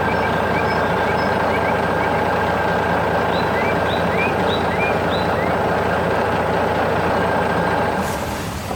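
Steady heavy-vehicle engine running, a dense unchanging rumble with a thin steady whine, fading out near the end. A few faint bird chirps sound over it in the first half.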